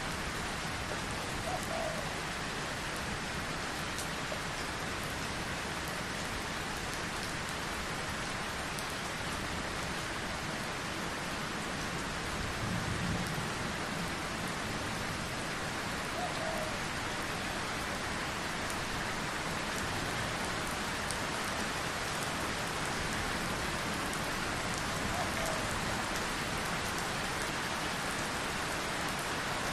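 Steady, heavy rainfall with a constant hiss of drops on a surface, and a brief low rumble about halfway through.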